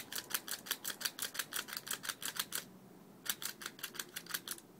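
A cheap spring-powered airsoft pistol being cocked over and over, its slide clicking fast and evenly, about six clicks a second. The clicking pauses about two and a half seconds in, then resumes and stops near the end. Each cock pushes another BB into the chamber, stacking several BBs there so they fire together like a shotgun.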